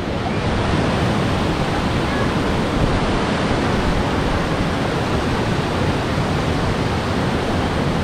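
Steady rushing noise with no distinct events, heaviest in the low end.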